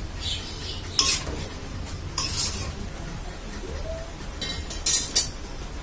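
A metal spatula stirring and scraping wilted greens in a metal karahi, with several sharp clinks against the pan, the loudest about a second in and near the end.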